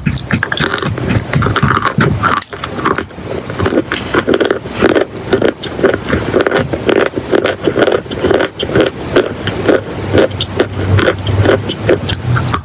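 Close-miked crunching of chalk and clay, a dense, steady run of quick crackles and snaps.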